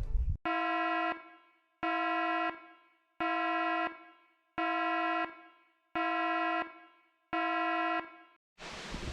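Electronic warning alarm: six identical buzzing beeps, each about two-thirds of a second long, repeating about every one and a half seconds.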